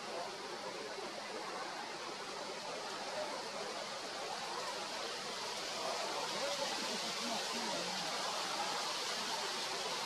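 Steady outdoor background hiss, an even wash of noise with no clear bird calls, a little brighter in the second half.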